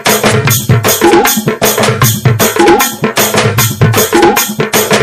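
Background music with a steady drum beat of about three hits a second.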